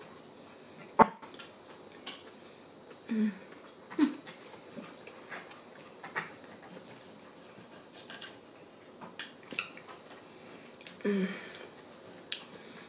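Knife and fork cutting corned beef on a plate, with sharp clinks of cutlery against the plate (the loudest about a second in), eating noises and a few short low hums.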